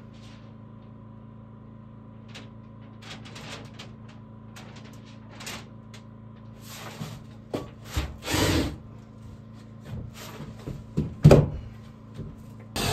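Scattered knocks, clunks and short scrapes of wood being handled, over a faint steady hum. The loudest knock comes about 11 seconds in, after a longer scrape near the 8-second mark.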